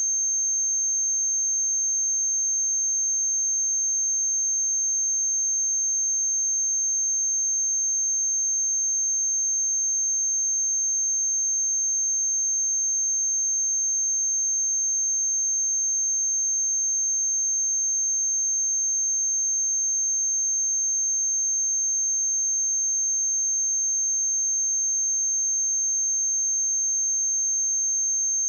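A pure 6354 Hz sine-wave test tone, a single high-pitched steady beep held at one pitch and level, used for checking speakers and headphones.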